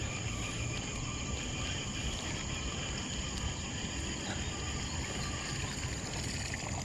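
Insects chirring steadily in the reeds, a continuous high-pitched whine, over an even low rumble.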